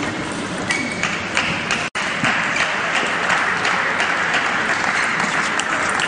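Table tennis rally: irregular sharp clicks of the ball off bats and table over a steady hiss of crowd noise filling the hall, which grows louder about two seconds in.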